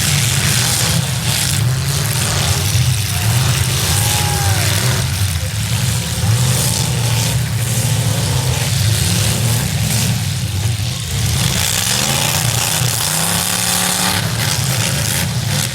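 Several V8 demolition derby cars' engines running and revving hard at once, the revs rising and falling, with a few sharp knocks among them.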